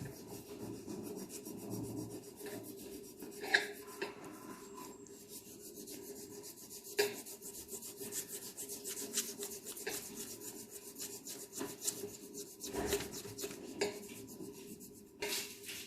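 Plastic crayon rubbed back and forth across paper, shading in a large area: faint, continuous scratchy rubbing made of many quick strokes, with a few sharper ticks.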